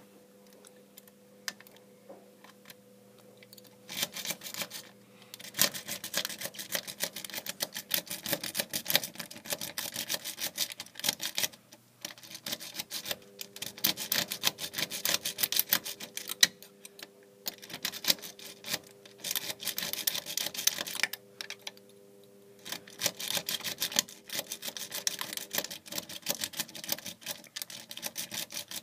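A lock pick and tension tool working the pins of a five-pin cylinder lock, making a fast run of light metallic clicks and scratches. The clicking starts about four seconds in and stops briefly twice, around twelve and twenty-one seconds.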